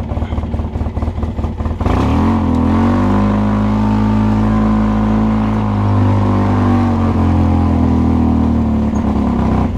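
Off-road vehicle's engine running with uneven, rapid firing pulses, then about two seconds in revving up sharply and holding high, steady revs, easing slightly near the end.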